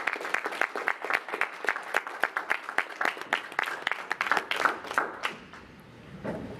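Applause from a small audience, individual hand claps distinct, thinning out and stopping about five seconds in.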